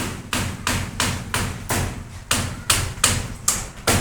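A steady run of loud, sharp knocks, about three a second, each with a short ringing tail.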